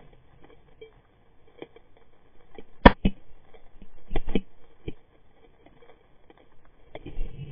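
Scattered sharp clicks and snaps heard underwater on a reef. The loudest comes about three seconds in, and a cluster of them follows a little after four seconds.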